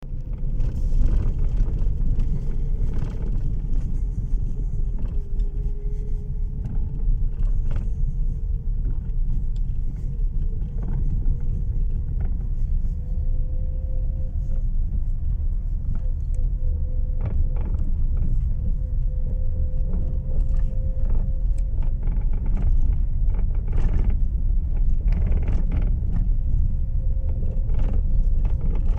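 Lada Vesta's electric power steering knocking: short, irregularly spaced knocks over the steady low rumble of the car, a sign of a fault in the steering unit.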